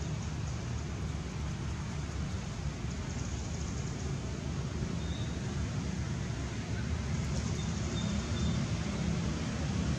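Steady outdoor background rumble, a low even noise like wind on the microphone or distant traffic, with faint brief high chirps about halfway through and near the end.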